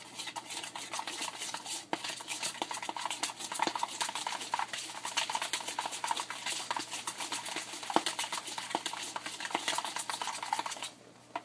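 A utensil stirring mustard barbecue sauce in a bowl: a fast, continuous run of scraping and clinking against the bowl that stops abruptly near the end.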